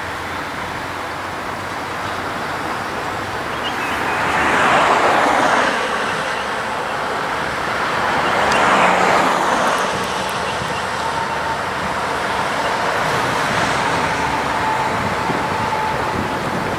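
Road traffic passing: two vehicles swell by and fade, about four and eight seconds in, over the steady outdoor rumble of a slowly moving diesel locomotive consist. A faint steady whine runs through the second half.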